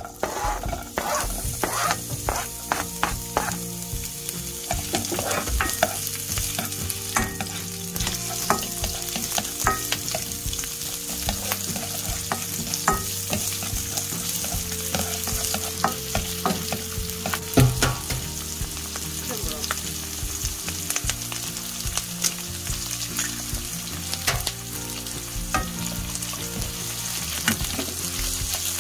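Chopped onion sizzling in a hot nonstick frying pan while a spatula stirs it, tapping and scraping against the pan in many short clicks. Later an egg is in the pan and sizzles along with the onion as it is scrambled.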